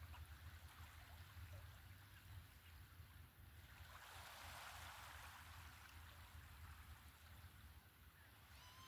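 Faint wash of small waves lapping at the shoreline, with a low steady wind rumble on the microphone; the water noise swells briefly about four seconds in. A short pitched bird call begins at the very end.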